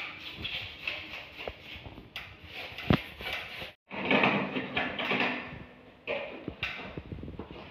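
Plastic knocks and handling noise from the casing of an LG split air conditioner's indoor unit, with a sharp knock about three seconds in. After a sudden break, a cloth rubs over the unit's front panel, with a couple of clicks near the end.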